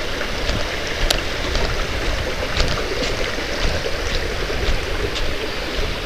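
Steady rushing of a small mountain stream, with scattered crunching footsteps on dry leaf litter and a low rumble.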